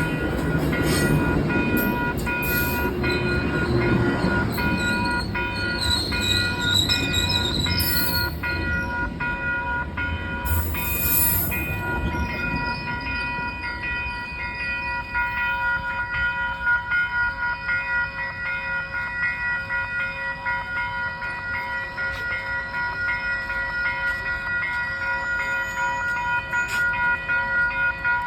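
Metrolink commuter train passing, its low rumble dying away about twelve seconds in. A set of steady high ringing tones pulses on throughout and carries on after the rumble has faded.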